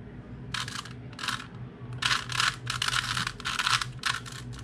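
Plastic Rubik's Cube layers being twisted by hand: bursts of quick clicking and scraping, two short turns early on, then a longer run of rapid turns from about two seconds in.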